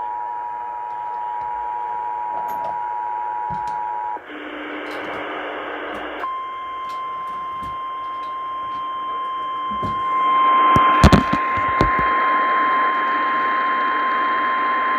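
Emergency Alert System attention tones received over the radio with static: a steady two-note alert tone cuts off about four seconds in. After about two seconds of louder hiss and a low hum, a single steady alarm tone sounds to the end, typical of the NOAA Weather Radio warning alarm that heralds the next warning. A few sharp clicks come a little before the middle of that tone.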